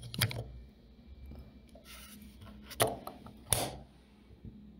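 Handling noise of small plastic objects: a few light clicks and a short rustle, the loudest click about three and a half seconds in.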